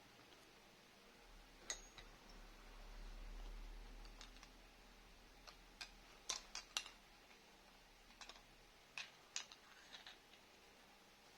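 Near silence broken by about a dozen faint, sharp clicks and light taps, scattered irregularly and bunched together in the middle, with a faint low hum that swells and fades in the first half.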